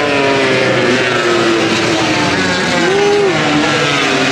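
MotoGP racing motorcycles running at high revs on the circuit. Several engine notes slide slowly down in pitch, with one short rise and fall in pitch about three seconds in.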